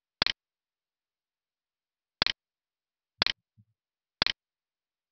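Computer mouse clicking four times, each a quick double click: one near the start, then three about a second apart.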